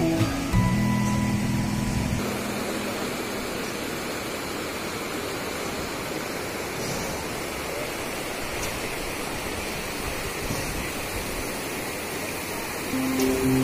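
Shallow rocky river rushing steadily over stones. Guitar music plays over it for the first two seconds and comes back in near the end.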